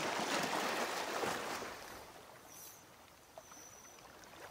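A long, audible yogic exhale: a soft rushing breath out that fades away over about two seconds, followed by faint outdoor background hiss.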